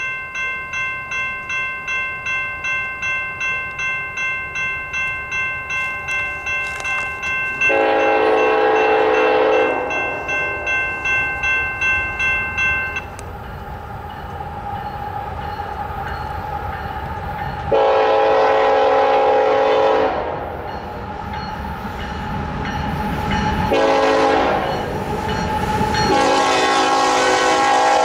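Grade-crossing warning bell ringing in steady strokes about twice a second as the signals activate, stopping about halfway through. A Norfolk Southern diesel locomotive's air horn sounds the crossing signal of long, long, short, long over the growing rumble of the approaching train.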